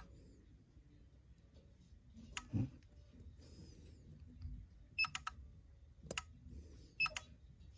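Short, sharp clicks from the UNI-T UT659A LED tester's internal polarity-switching relay as the probes are moved between the pins of an RGB LED. They come in small clusters: a single click about two and a half seconds in, three quick clicks about five seconds in, then one near six seconds and a pair near seven. There is also a soft thump from the probes being handled about two and a half seconds in.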